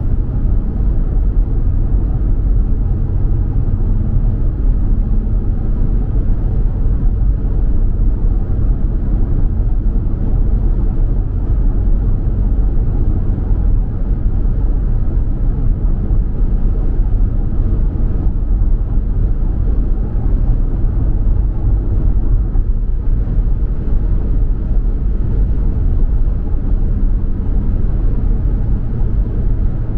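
Car in motion: a steady low rumble of road and tyre noise and engine.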